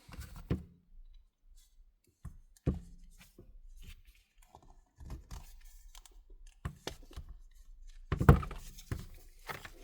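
Small repair tools working at an iPhone X to pry up its display: scattered light clicks, taps and scrapes, with a sharper knock about eight seconds in.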